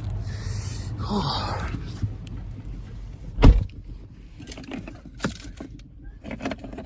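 A steady low rumble, then a single heavy thump about halfway through, a car door shutting, followed by scattered light clicks and rustling.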